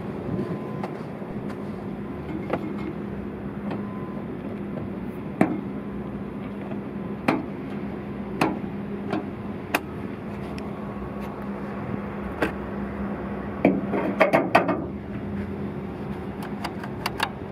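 Hood latch and hood panel of a 2021 Ford Transit Connect handled by hand, giving scattered sharp clicks and knocks. A quick run of knocks comes about three-quarters of the way through, as the hood is released and raised. A steady low hum sits underneath.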